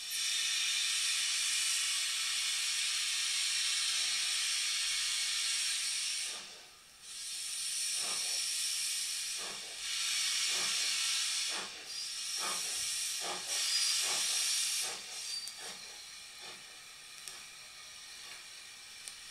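A vintage recording of a British steam locomotive played from a vinyl LP through speakers: a loud, steady hiss of escaping steam, broken off briefly about six seconds in, then exhaust chuffs about one a second, coming a little quicker. The hiss dies away about fifteen seconds in and the chuffs go on more quietly.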